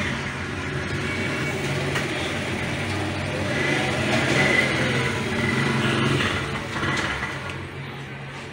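Steady low mechanical hum, like an idling engine, under a faint background street noise.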